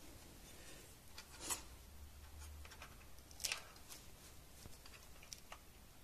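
Faint handling noise as wire leads and small plastic parts are fitted on a quadcopter's plastic body: scattered light clicks and rustles, with two louder brief rustles about a second and a half in and about three and a half seconds in.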